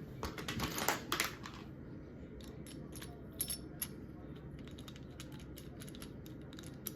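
Small metal bracket parts and a screw clinking and clicking as they are fitted together and tightened by hand: a burst of rattling in the first second and a half, then a few scattered light clicks.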